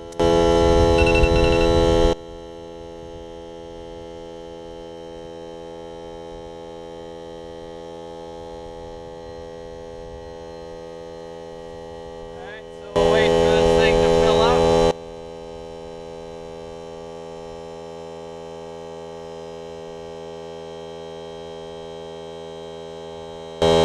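Ryobi cordless air compressor running steadily as it pumps up a flat tyre, a constant hum. Twice it suddenly gets much louder for about two seconds.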